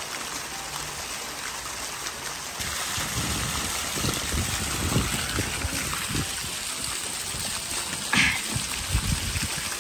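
Fountain jets in a garden pond splashing down into the water, a steady rushing spray.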